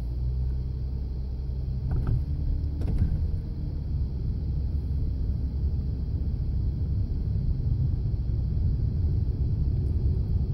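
Steady low road and engine rumble heard from inside a car's cabin as it rolls slowly along a paved lane, with two light knocks about two and three seconds in.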